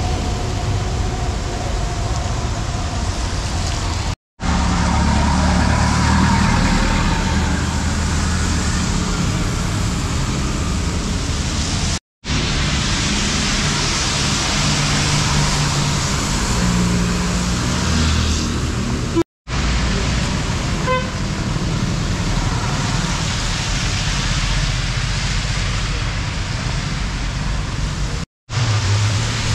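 Road traffic on wet tarmac: cars, motorbikes and buses passing with engine rumble and tyre noise from the wet road, and a brief horn toot now and then. The sound cuts out for a moment four times.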